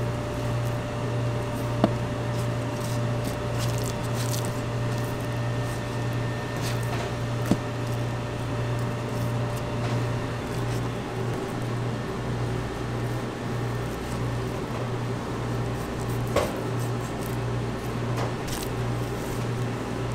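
Steady low hum of kitchen machinery, such as ventilation or refrigeration, with three sharp knocks of a chef's knife against a plastic cutting board as raw pork tenderloin is trimmed.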